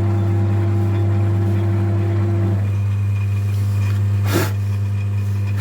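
Metal lathe running with a steady low hum as it turns a VW 1.9 TDI piston for bowl machining. A higher tone in the sound stops about halfway through, and a brief knock comes near the end.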